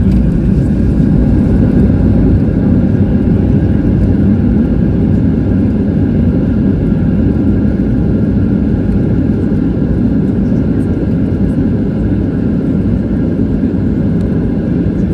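Steady cabin noise inside a Boeing 737-700 in flight: a dense, even rumble of the CFM56 jet engines and the airflow over the fuselage, with a few faint steady tones above it.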